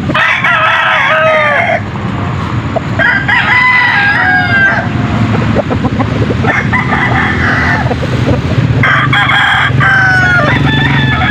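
Gamefowl roosters crowing in turn: five crows, each one to two seconds long, coming roughly every two to three seconds, over a steady low rumble.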